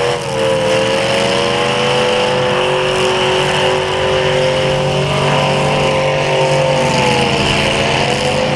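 Demolition derby car's engine revved hard and held at high revs, a steady high pitch that sags briefly near the end before picking up again.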